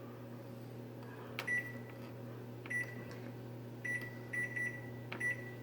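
Electronic oven control panel beeping as its buttons are pressed to set the timer: about six short, high beeps, some led by a button click, over a steady low hum.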